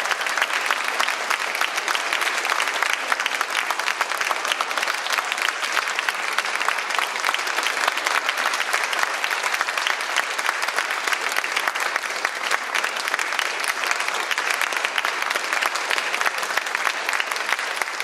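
Audience applauding steadily, many hands clapping in a dense, unbroken patter.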